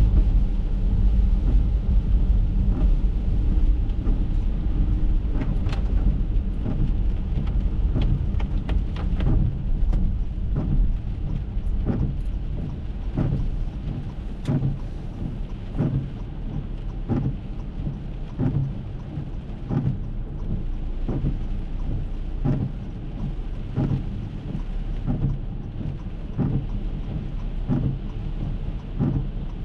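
Heavy rain striking the windshield and roof of an Acura MDX, heard from inside the cabin as many short sharp ticks, with the windshield wipers sweeping. A low road rumble is strongest at first and eases as the car slows to a stop.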